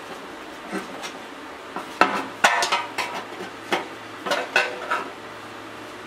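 A small steel patch panel clinking and scraping against the edges of a cutout in a steel motorcycle petrol tank as it is worked into place by hand. It is a tight fit. There are several short metallic clicks and scrapes, the loudest cluster about two to three seconds in.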